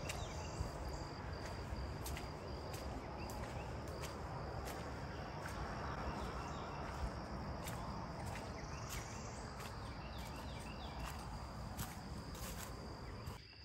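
Steady high-pitched insect trill over a low wind rumble, with scattered footsteps on a wet dirt path and a few faint bird chirps.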